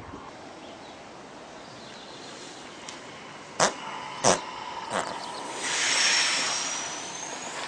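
Three sharp knocks about two-thirds of a second apart, then a resting horse lets out a long hissing rush of air, about two seconds, with a thin whistle that rises near its end.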